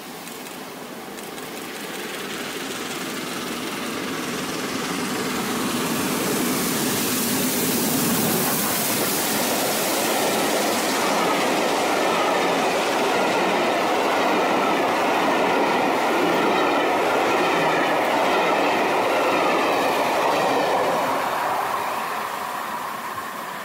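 A steam-hauled passenger train, an LNER Peppercorn A1 Pacific locomotive with its coaches, passing close by on the rails. The noise builds over the first several seconds and holds while the coaches run past. It fades near the end as the train goes away.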